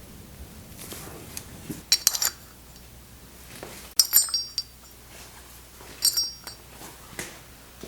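Metal parts and tools clinking together during reassembly of a backhoe's hydraulic valve body: a few separate clusters of sharp clinks with a bright ring, roughly two seconds apart.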